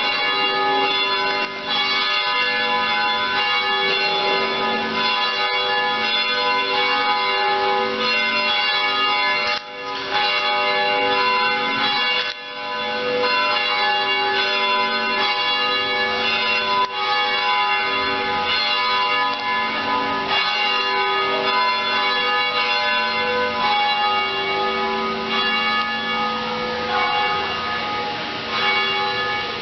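Church bells pealing: several bells ring together in a continuous, overlapping clangour.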